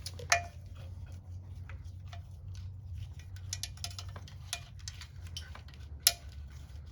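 Scattered light clicks and taps of small metal parts and wiring being handled during motorcycle disassembly, with two sharper clicks, one just after the start and one near the end, over a steady low hum.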